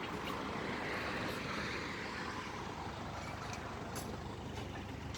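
A vehicle engine idling with a steady low rumble and a few light clicks.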